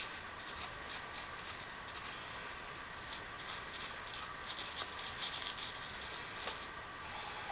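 Faint scattered clicks and light rustling, like small parts or tools being handled, over a steady faint hum.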